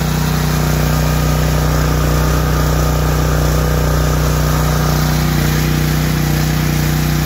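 Generac MegaForce 6500 portable generator's engine running steadily at constant speed while the generator is load-tested at about 3,000 watts.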